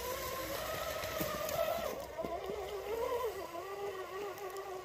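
Electric motor and gearbox of a radio-controlled scale rock crawler whining as it crawls, the pitch rising and falling with the throttle, with a few light clicks.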